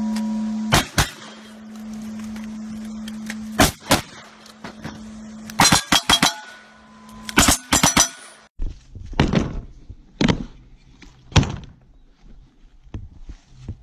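Quick strings of gunshots from a lever-action rifle and then a revolver, with a steel target ringing on after some hits. After about eight seconds the shooting stops and softer knocks follow.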